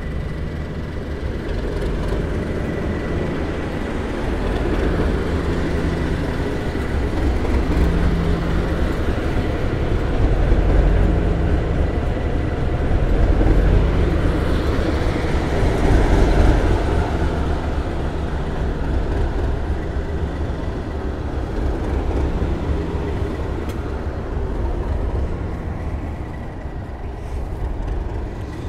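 Class 37 diesel locomotives' English Electric V12 engines running, a deep continuous rumble with a steady high whistle over it, growing louder through the middle and easing off again toward the end.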